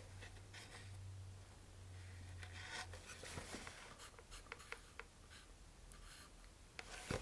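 Faint scraping and small clicks of a wooden dowel working thick epoxy in a paper cup. A low steady hum sits underneath for about the first three seconds. There is a slightly louder click near the end.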